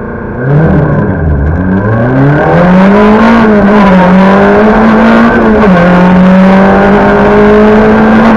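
Talbot Samba Group B rally car's engine heard from inside the cockpit, launching hard from a standing start about half a second in. The revs climb steeply, then the engine pulls at high revs with a drop at each upshift.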